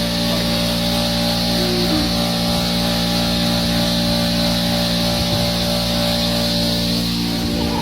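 An engine-driven machine running at a steady speed: a constant drone with a hiss over it.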